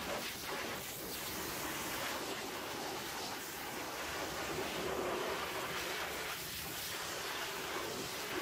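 Hot-water pressure washer jet spraying steadily against a truck's steel chassis frame and air tanks, a continuous hiss of water.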